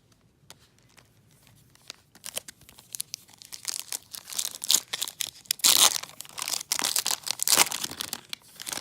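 Foil trading-card pack wrapper being crinkled and torn open, a run of crackly rustling that starts about two seconds in and peaks twice near the end.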